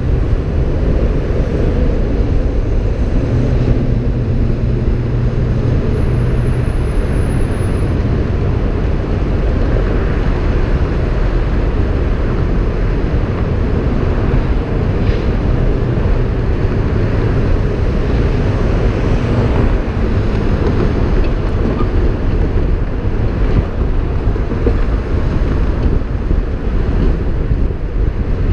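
Wind buffeting the microphone of a hood-mounted GoPro at freeway speed, mixed with road and tyre noise: a steady, loud low rumble.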